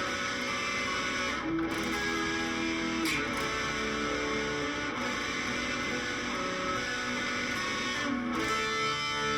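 Electric guitar played through an amplifier with an overdrive pedal dialed in for a rock and roll tone, playing held notes and chords that change every second or two.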